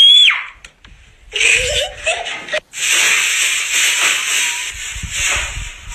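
A child's brief high-pitched shriek right at the start, then a person's laughter and wheezing breaths against a steady hiss.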